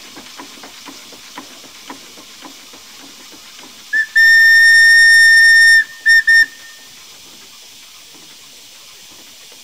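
Steam locomotive whistle: a short toot, one long blast of about a second and a half, then two quick toots, over a steady hiss of steam. A run of faint knocks sounds in the first couple of seconds before the whistle.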